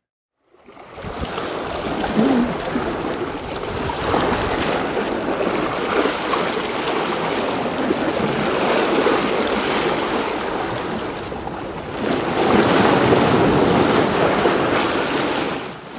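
Sea waves washing and breaking against the rocks of a breakwater: a continuous rush of surf that rises out of silence in the first second and swells louder about four seconds in and again from about twelve seconds until shortly before the end.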